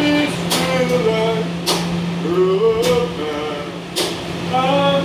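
A person's voice, its pitch gliding up and down, over a steady low hum inside a subway car, with sharp clicks about once a second.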